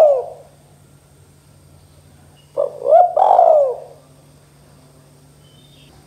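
Spotted dove (tekukur) cooing. The end of one phrase fades out at the start, and a full phrase comes about two and a half seconds in: two short notes, then a longer coo that rises and falls.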